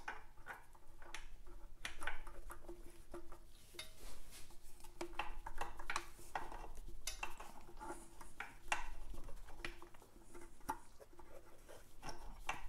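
Rubber oil pipe being worked by hand onto the metal spigot of a Norton Commando's oil filter assembly: irregular small clicks, taps and rubbing as the hose is pushed and twisted into place, over a faint steady hum.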